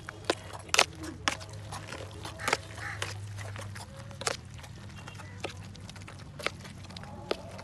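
Metal spoon clinking and scraping against a steel tray while mixing broth-soaked torn flatbread, with several sharp clinks spaced irregularly, the loudest about a second in.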